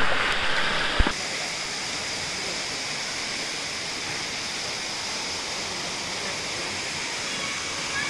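Water splashing loudly close by for about a second, cut off sharply, then a steady rush of falling water from a waterfall pouring into a rock pool.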